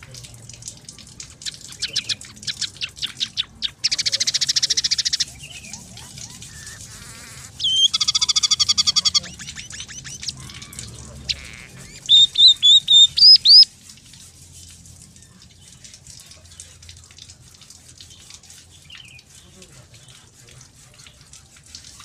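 Scaly-breasted munia singing a varied song: a run of quick chips, a buzzy trill, a rattling phrase, then six loud rising whistles a little past the middle, after which only faint chips remain. It is a trained song filled with borrowed phrases of house sparrow, red siskin and canary.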